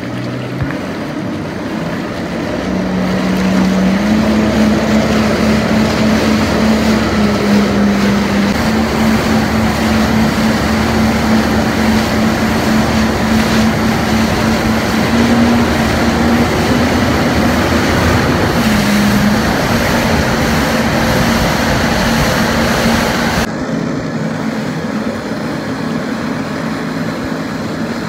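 Jet ski engine running at speed over wind and water noise, its pitch stepping up a few seconds in and then holding steady. Near the end it drops to a lower, quieter note.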